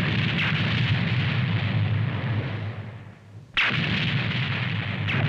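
Two animated-cartoon explosion sound effects. The first is a sudden blast at the start with a low rumble that fades over about three seconds. The second is an equally sudden blast about three and a half seconds in.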